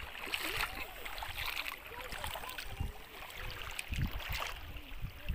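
Small sea waves lapping and splashing at the shore, irregular and fairly quiet, with faint distant voices.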